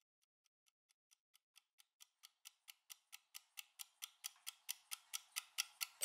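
Countdown kitchen timer ticking fast, about four to five ticks a second, growing from faint to loud through the final seconds of the countdown. Right at the end the timer's alarm starts ringing loudly, marking zero.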